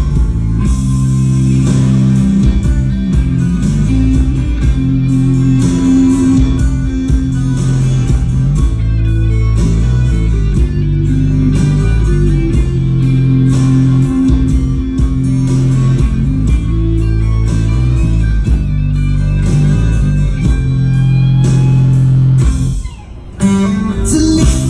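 Background music: a guitar-led rock or blues track with bass and drums, with a brief drop in level near the end.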